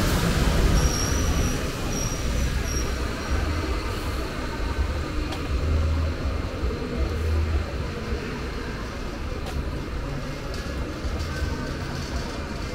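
Night-time city street ambience: a steady low rumble of traffic, with a bus running further up the street. A few short, high-pitched chirps sound in a quick series about a second in.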